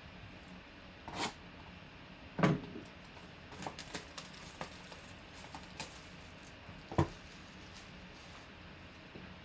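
A sealed cardboard box of baseball cards handled and opened by hand: scattered crinkles and clicks of plastic wrap and cardboard, with two sharper knocks, about two and a half and seven seconds in.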